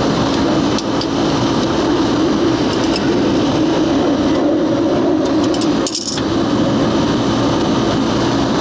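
Outdoor air-conditioning condenser unit running, a steady mechanical hum from its compressor and fan.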